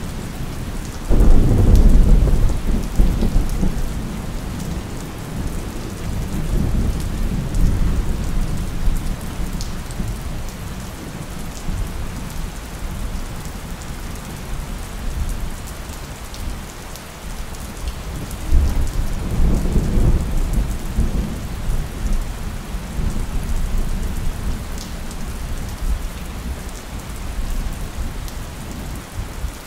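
Steady rain with thunder. A loud thunderclap starts suddenly about a second in and rumbles away over several seconds, and a second, slightly weaker roll of thunder comes about two-thirds of the way through.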